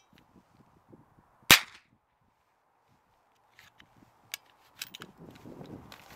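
A single shot from a Kriss Defiance DMK22 .22LR semi-automatic rifle firing a Federal Game Shock shot cartridge, about one and a half seconds in. The low-powered round fails to cycle the action and leaves the spent case unejected. A few light clicks follow near the end as the rifle is handled.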